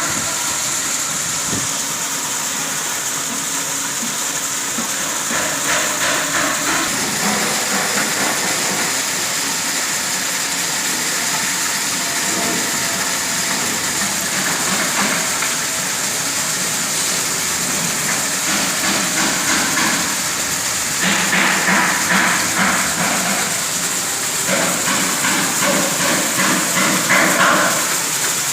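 Water fountain running: a steady rush of falling, splashing water, louder and more uneven in stretches near the end.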